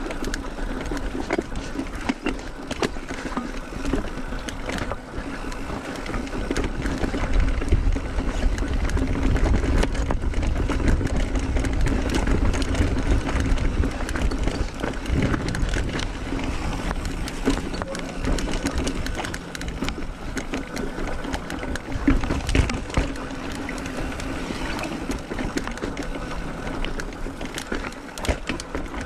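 Mountain bike being ridden over a rough trail: tyres rolling over rock and dirt, with the bike clicking and rattling over bumps and a low wind rumble on the microphone. It gets louder through the middle stretch, with a sharp knock a little past two-thirds of the way in.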